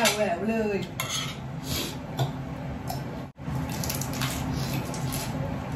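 Fork and spoon clinking against a plate during a meal: a few separate sharp clinks, after a brief bit of voice at the start.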